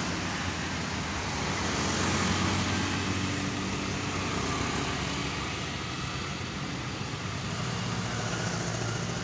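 Road traffic passing on a sharp uphill bend: cars and motorcycles going by, a steady mix of engine hum and tyre noise that swells slightly about two seconds in.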